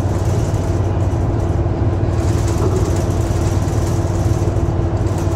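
Ofunato Line BRT bus engine running steadily: an even, low hum that holds one pitch throughout.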